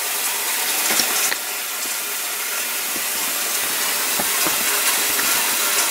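Steady hiss of steam and running water as a hot metal rotisserie part is soaked at the sink, with a couple of light knocks about a second in.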